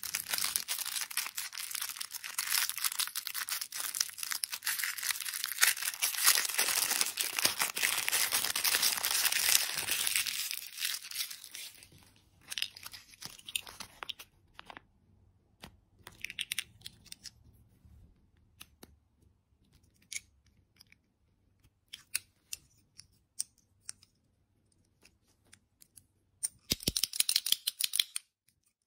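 Thin plastic candy wrapper crinkling and tearing as hands pull it open, a dense crackle for about the first ten seconds. After that come sparse crinkles and small clicks of handling, with a short burst of crinkling near the end.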